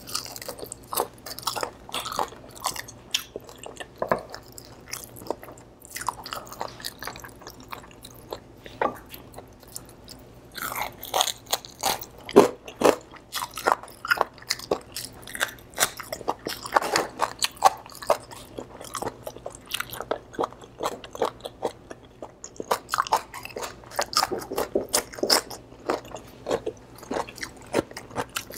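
Close-miked biting and chewing of crispy fried pork, with the skin crunching and crackling in quick, irregular bursts between softer wet chewing.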